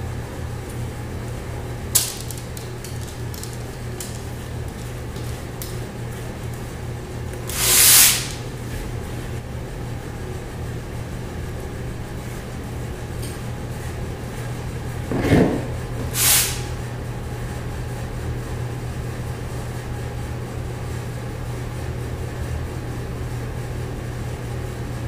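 Cake batter being scraped from a plastic mixing bowl into a springform pan with a silicone spatula: a steady low hum underneath, a sharp click about two seconds in, and a few short swishes, one around eight seconds and two more about halfway through.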